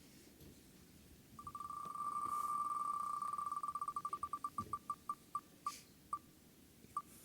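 Spin-to-win prize wheel ticking as it spins: a fast run of pitched ticks that blur into one beeping tone, then slow down and space out until the wheel stops near the end.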